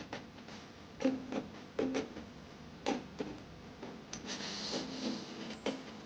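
Light background music of short plucked notes, each starting with a sharp click, at an uneven pace, with a brief hiss about four seconds in.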